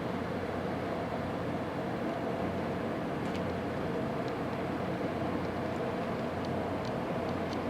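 Steady drone of the cruise ship Diamond Princess's engines and ventilation, with a low hum underneath and a few faint ticks in the second half.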